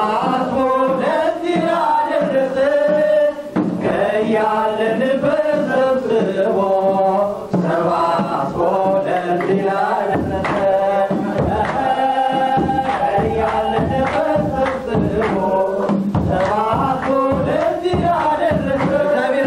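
An Ethiopian Orthodox congregational hymn (mezmur) sung in Amharic by many voices in chant-like unison, with a kebero, the large double-headed church drum, beaten along with it. The drum strokes come through more strongly about halfway through.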